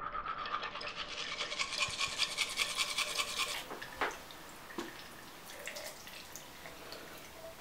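Manual toothbrush scrubbing teeth in rapid back-and-forth strokes, stopping abruptly about three and a half seconds in. A couple of sharp knocks and a few light clicks follow as the brush is handled at the sink.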